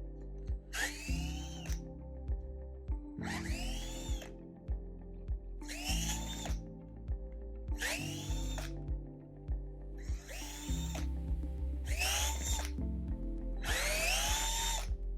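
Power screwdriver running in seven short bursts, each with a rising whine as it spins up, backing out the seven screws of an actuator case. Background music plays underneath.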